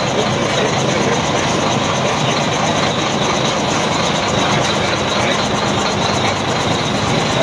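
Diesel engine of a wheel loader running steadily at close range, a continuous low engine hum over a broad rumble.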